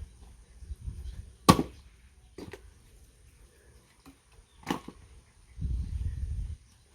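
Axe chopping firewood: a sharp, loud chop about one and a half seconds in, a lighter knock a second later, and another chop near five seconds. A low dull rumble lasting about a second comes near the end.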